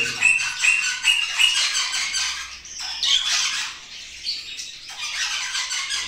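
Parrots squawking: a quick run of short, repeated calls, then harsher, rasping squawks.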